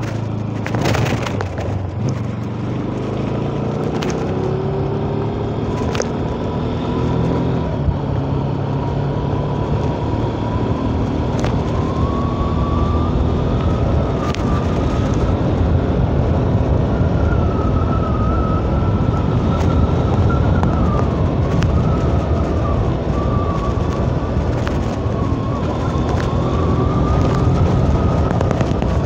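Bajaj Pulsar NS 200 motorcycle's single-cylinder engine running under way, its pitch rising and falling with the throttle, over a steady rush of wind and road noise. A high wavering whine runs above it, and a few sharp ticks come in the first half.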